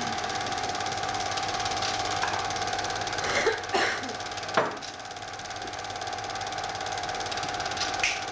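Home-movie film projector running: a steady hum with a fast, even clatter of the film mechanism, broken by a few short knocks around the middle and near the end.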